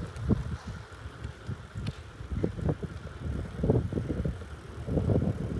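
Wind buffeting the microphone while riding a bicycle: an uneven, gusty low rumble.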